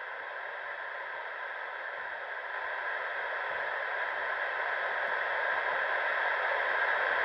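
Steady hiss of radio static from a railroad scanner in a pause between dispatcher transmissions, growing slowly louder.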